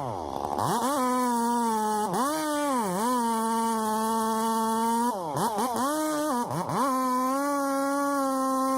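Two-stroke chainsaw running near full throttle, its pitch dropping sharply several times and climbing back as the chain bogs into the wood and then frees up.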